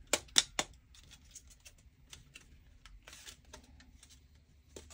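Plastic clips of a BMW i3 kidney-grille trim snapping into place as the trim is pressed onto the grille: three sharp clicks in the first second, then fainter clicks and rubbing of plastic on plastic.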